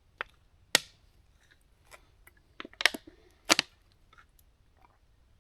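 A handful of sharp clicks and knocks at irregular spacing, the loudest about three quarters of a second in, a close pair near three seconds, and one more half a second later.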